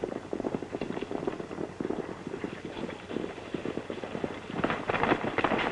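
Horses' hoofbeats in a rapid, dense clatter, louder for about the last second.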